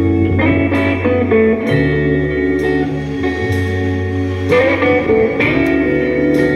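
Background music: a plucked guitar over held low bass notes that change about once a second.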